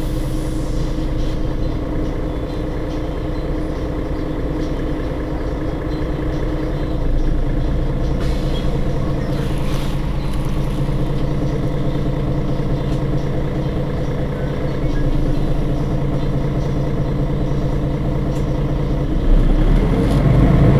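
Mercedes-Benz Citaro G C2 articulated bus engine idling steadily while the bus stands still. About a second and a half before the end it gets louder, with a stronger low rumble.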